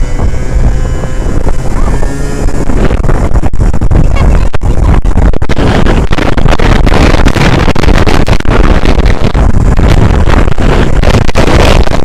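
Heavy wind buffeting on the camera's microphone as the vehicle pulls away and gathers speed, over a low engine drone. The buffeting becomes dense and constant about three seconds in.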